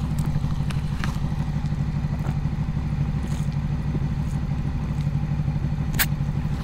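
Motorcycle engine idling steadily with an even, rapid low pulse, stopped at traffic lights. A single sharp click about six seconds in.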